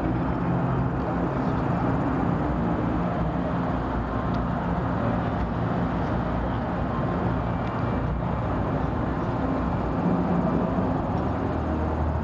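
Steady road traffic noise, a continuous low rumble of vehicles, a little louder about ten seconds in.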